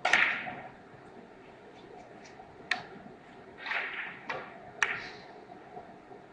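A few sharp, isolated clicks of billiard balls striking at other tables, with two short scraping sounds, over the quiet background of a billiards hall.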